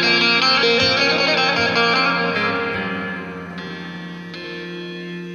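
Instrumental ending of a Turkish folk song: plucked strings played through effects over a steady low note, fading out from about halfway through.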